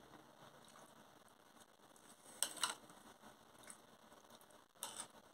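Faint eating sounds: metal cutlery scooping food from a china plate. There are a few short clicks, two close together about halfway through and one more near the end.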